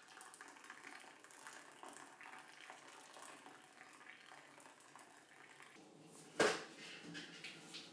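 Hot water poured in a thin stream from a kettle onto coffee grounds in a paper-filtered pour-over dripper, a faint steady trickle. About six seconds in, one sharp knock, followed by a few light clicks.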